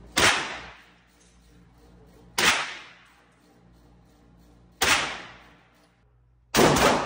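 Handgun shots fired one at a time on an indoor range, about two seconds apart, each with a short echo that dies away off the range walls. Four shots, the last a quick double.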